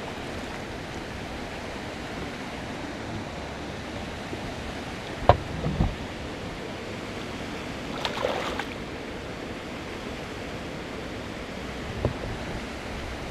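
Steady rushing of river water, broken by a few short knocks and thumps: a sharp knock about five seconds in, a brief clatter around eight seconds and a lighter knock near the end.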